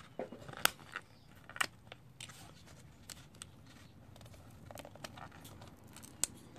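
Stiff plastic blister packaging of a Loctite 592 thread sealant tube crackling and clicking as it is handled and the tube is worked out of it. A few sharp clicks are spread through, the loudest about half a second in.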